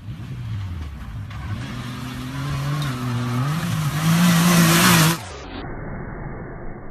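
Off-road vehicle engine revving hard, its pitch climbing over a few seconds under rising rushing noise. It cuts off suddenly about five seconds in.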